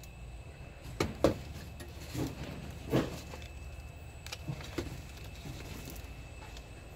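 Handling noise from a Sony DCR-TRV240 Handycam camcorder being turned over in the hand near a shelf: a few short knocks and clunks, the loudest about a second in and again at three seconds, over a low steady hum.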